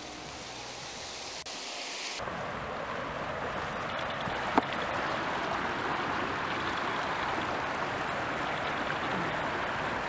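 Water of a fast-flowing creek rushing over shallow rapids, a steady rushing noise that comes in about two seconds in and slowly grows louder. A single sharp click cuts through it about halfway through.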